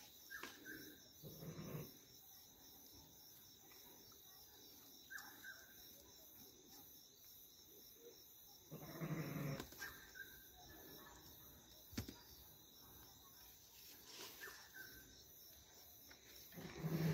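A ram bleating three times, near the start, midway and at the end, each call about a second long, over a steady chirring of crickets. A single sharp click about twelve seconds in.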